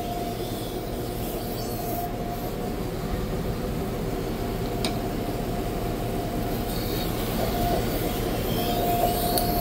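Tradesman Edge Apex sharpening machine running, with a knife edge worked wet against its 1000-grit resin-bond diamond wheel: a steady hum and grinding with a thin whine, and one small click about five seconds in.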